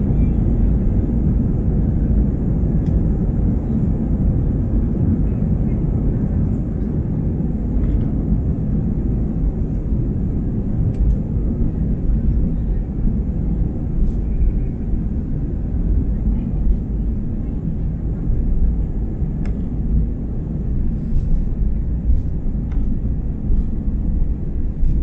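Airbus A320 on its takeoff roll, heard from inside the cabin: a loud, steady low rumble of the engines at takeoff thrust and the wheels on the runway, with scattered light rattles.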